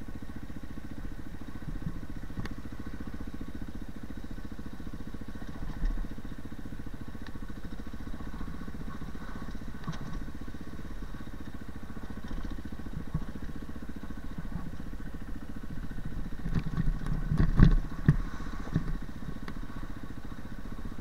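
Dirt bike engine running steadily as the bike is ridden along a rough dirt trail. Clattering knocks and a few loud thumps come from the bike over the rough ground about three-quarters of the way through, the loudest moment.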